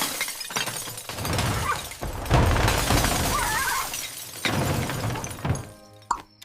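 Cartoon crash and shatter sound effects: several loud smashes of things breaking one after another, thinning out to a few short knocks near the end.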